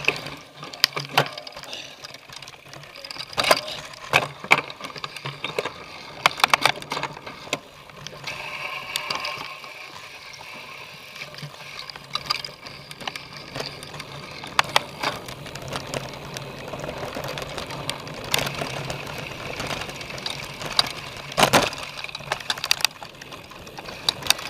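Cyclocross bike rattling and clattering over rough race ground: frequent sharp knocks and clusters of rattles over a steady rolling noise.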